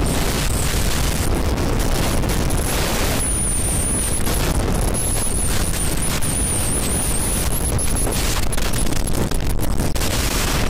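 Wind buffeting hard on the microphone of a phone held at the handlebars of a motorcycle riding at about 80 to 90 km/h, a steady loud rush that covers the engine and road noise. A thin, high wavering whistle rises out of it from about three seconds in to about eight.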